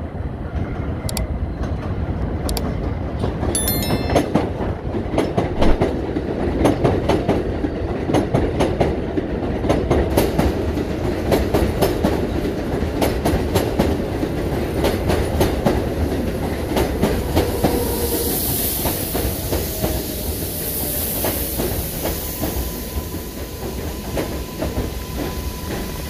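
Elevated metro train running in along the track and passing close by, a steady rumble with its wheels clacking rhythmically over the rail joints. A thin steady whine comes in during the last few seconds.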